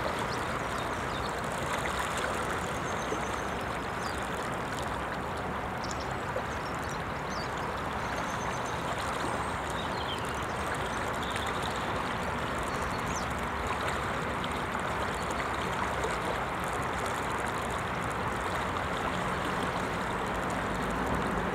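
Steady rush of flowing river water over a gravel bank, an even hiss with no breaks. A few faint, short, high chirps come through here and there, and a low hum starts near the end.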